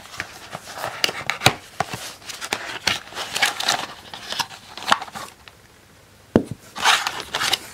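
Handling of a cardboard kit box and clear plastic packaging: crinkling of a plastic bag and a hard plastic case, with scattered sharp clicks and taps and a few short bursts of rustling.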